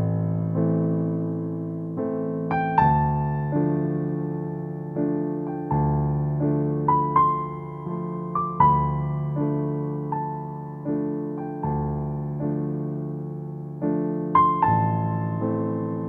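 Background music: soft piano playing slow chords, each struck and left to fade, with single melody notes above them.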